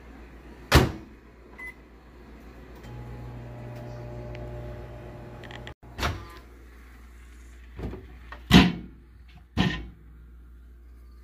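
Microwave oven: a sharp click of the door about a second in, a short keypad beep, then the oven running with a steady hum for about three seconds that cuts off abruptly. Then come several sharp knocks as the door is worked and the paper-towel-wrapped potatoes are turned on the plastic plate inside.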